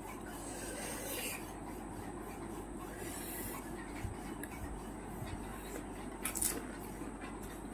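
Handling of crisp, hollow panipuri shells, with a sharper crunch about six seconds in as a whole puri is bitten, over a steady low hiss.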